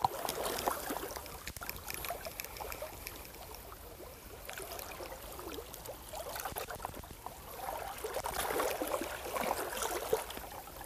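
Shallow water lapping and trickling among shoreline rocks, swelling a little near the end, with light clicks here and there.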